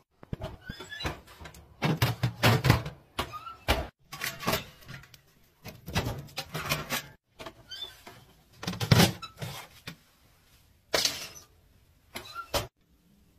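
Metal doors of an Alfa Plam wood-burning kitchen stove being handled: repeated clanks and thuds, coming in about half a dozen bursts, as the oven and firebox doors are opened and shut.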